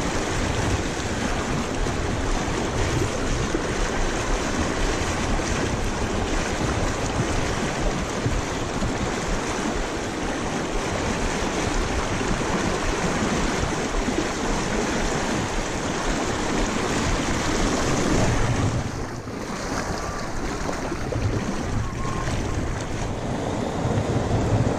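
Fast, shallow mountain river rushing over rocks as a steady, even wash of water noise.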